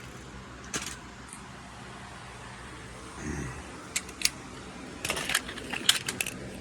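Steady drone of a car cabin while driving, with sharp clicks: one a second in, two about four seconds in, and a quick run of them near the end.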